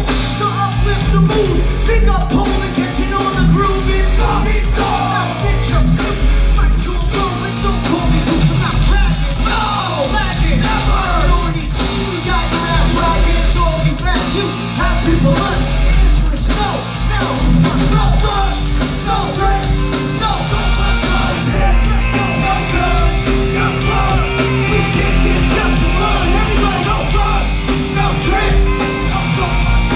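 A live rap-rock band playing loud, with drums, electric guitars and a shouted vocal, heard from the audience in a concert hall. The bass end is heavy.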